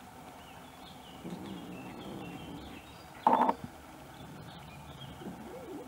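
Bengal kittens feeding together on raw minced beef. There is one short, loud kitten call about three seconds in and a softer meow that rises and falls near the end, with faint birdsong behind.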